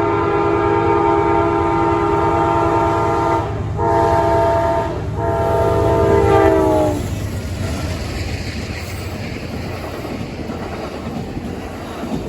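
Locomotive air horn of an Amtrak Auto Train sounding a loud multi-note chord, broken twice briefly and dropping in pitch as the locomotives pass about seven seconds in. Then the steady rumble and clatter of the train's wheels on the rails as the cars roll by.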